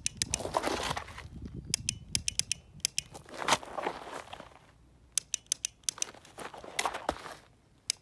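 Dry-fire trigger clicks from a Glock pistol fitted with a dry fire mag, in quick strings of several sharp clicks. Between the strings there is rustling and crunching as a body and clothing shift on dirt and gravel.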